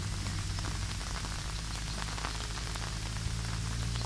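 Steady heavy rain falling on grass, leaves and wet ground, with many separate drop hits, over a constant low rumble of wind.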